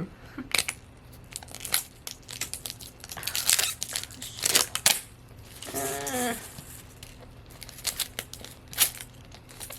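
Plastic wrap on a toy capsule ball crinkling and tearing in irregular bursts as it is picked and pulled at by hand, the wrapping resisting being opened.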